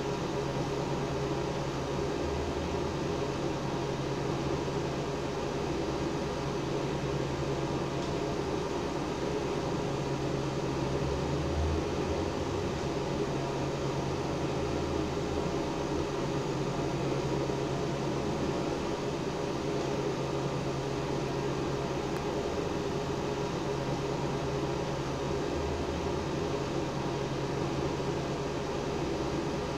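Steady machine hum with a constant low drone and an even whirring hiss over it.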